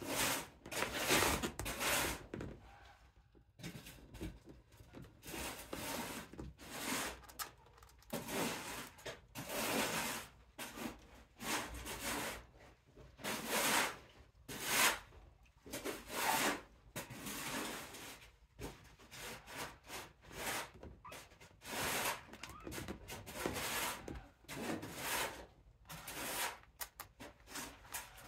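Kittens' claws scratching and catching on the mesh and fabric walls of a playpen as they climb up and over the rim, in irregular scratchy bursts.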